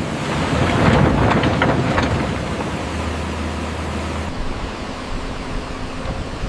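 Hydraulic excavator's diesel engine running steadily with a low hum. From about half a second to two and a half seconds in there is a louder rough burst of rattling and scraping noise, and the sound changes abruptly a little after four seconds.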